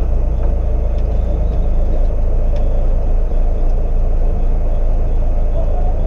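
Rally car's engine idling while the car stands still, a steady low rumble heard from inside the cabin, with a few faint clicks.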